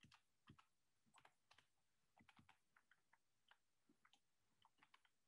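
Faint, irregular clicking of computer keyboard keys being typed, close to silence.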